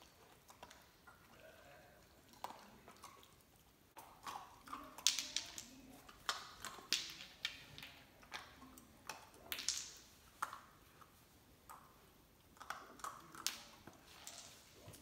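German Shepherd puppy pawing at and gnawing an ice cube on a hardwood floor: from about four seconds in, a run of sharp clicks and scrapes as the ice knocks and skids on the wood and against its teeth and claws.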